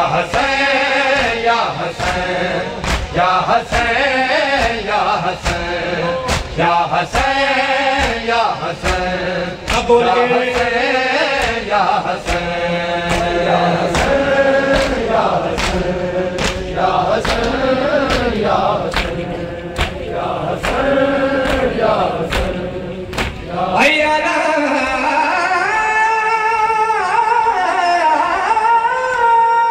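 Shia mourners chanting a noha together over rhythmic matam, open hands striking bare chests about one and a half times a second. About 24 seconds in the chest-beating stops and a single male reciter sings on alone into a microphone, his voice wavering.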